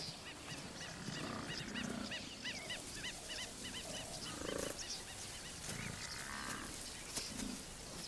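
Bush ambience: a bird calls in a quick series of short, arched notes, about four a second, for the first three seconds. Scattered low animal grunts and growls run throughout.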